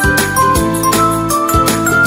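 Background music: an upbeat tune with a steady beat and bright, bell-like high notes.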